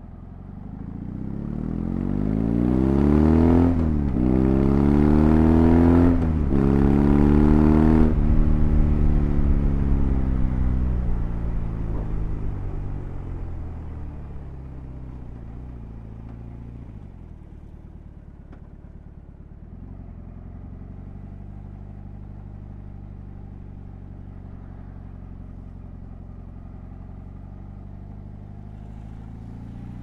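BMW R18's 1802 cc boxer twin accelerating hard, its pitch climbing with two quick upshifts about four and six seconds in. Then the revs fall slowly as the throttle is rolled off, and the engine settles to a steady low-revving run for the last dozen seconds.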